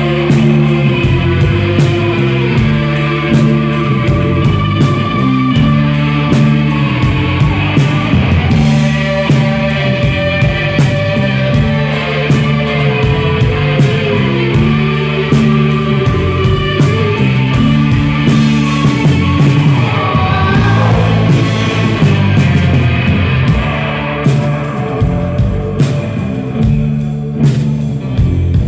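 Live rock band playing: electric guitars and bass over a steady drum beat, with a repeating riff, heard from the crowd. Over the last few seconds the guitars thin out and the drum hits stand out more.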